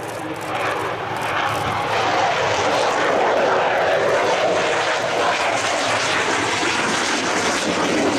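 Jet fighter flying past, its engine roar building over the first couple of seconds and then holding loud and steady.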